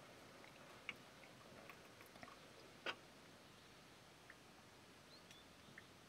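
Near silence, broken by a few faint short clicks, the clearest just under a second in and just under three seconds in.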